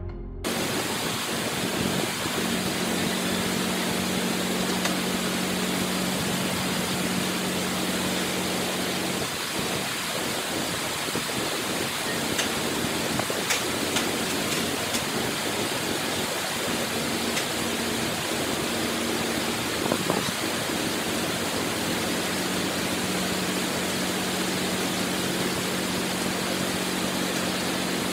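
Tracked bulldozer's diesel engine running with a steady low hum, under a loud, even hiss.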